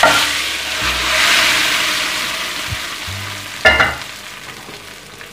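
Hot ghee and fried onions poured onto thick haleem, sizzling sharply as the tadka hits. The sizzle is loudest about a second in and then slowly dies down. A brief sharp sound comes a little past halfway.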